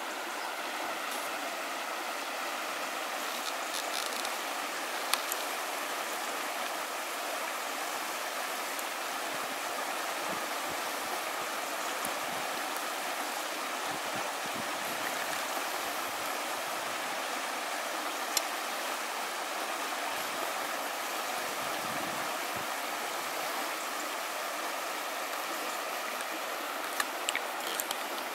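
Shallow river water rushing steadily over a gravel riffle, with a few short sharp clicks at about 5, 18 and 27 seconds.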